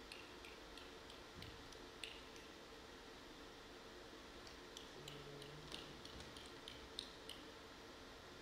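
Near silence: faint room tone with scattered small ticks and clicks, a few early on and a closer run about halfway through.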